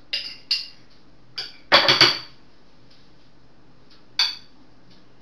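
A spoon clinking and scraping against a glass jar while scooping out thick mayonnaise: two clinks at the start, the loudest run of clinks about two seconds in, and one more near the end.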